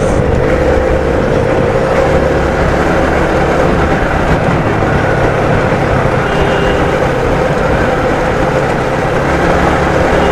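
Motorcycle on the move at a steady speed: a steady rush of wind and road noise on the microphone, with the engine running underneath.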